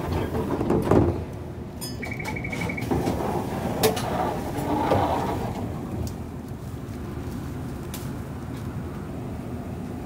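Toden Arakawa Line 7700-series tram's door buzzer beeping rapidly, about ten short pips in under a second, as the single-leaf sliding door works, with a sharp knock from the door a couple of seconds later over the tram's steady low hum.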